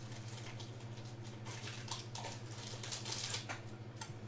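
Trading cards and pack packaging being handled: irregular scratchy rustling and light clicks, over a steady low electrical hum.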